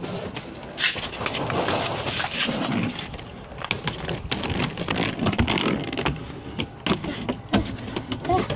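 Handling noise from a phone held close: rustling and rubbing as its microphone brushes against hair and clothing, with many irregular knocks.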